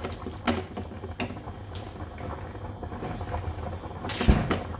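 Kitchen clatter of utensils and dishes: a few scattered clicks and knocks, with a heavier thump about four seconds in, over a steady low hum.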